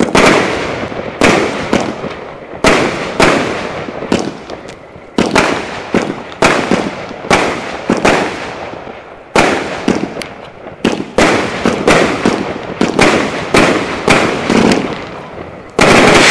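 A 25 mm firework cake (battery) firing its shots one after another, each launch followed by a bang as the shell bursts, about one to two a second. A denser, louder volley comes near the end.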